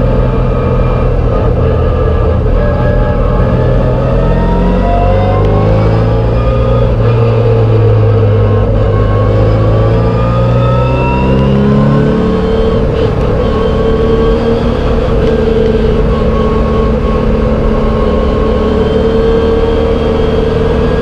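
MGB race car's four-cylinder engine heard from on board under racing load, revs climbing steadily for several seconds, then dropping sharply about twelve seconds in as it shifts up, and holding steady at high revs after.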